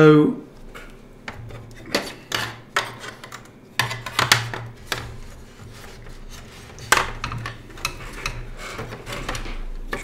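Scattered light clicks, knocks and scraping of hands and a tool working inside an opened all-in-one PC's chassis, freeing the SSD from its bay.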